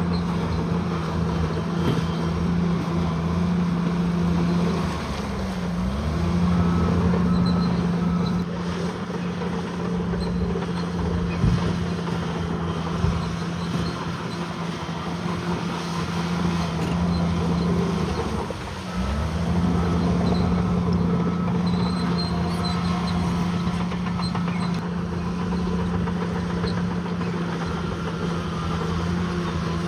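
Bulldozer's heavy diesel engine running steadily at high revs; twice the engine note briefly dips and comes back up.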